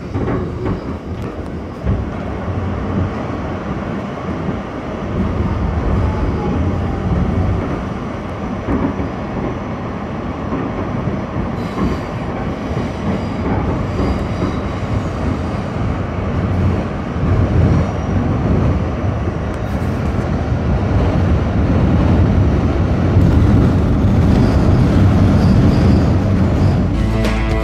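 New York City subway train running along the track: a steady rumble of wheels and running gear that grows slowly louder toward the end.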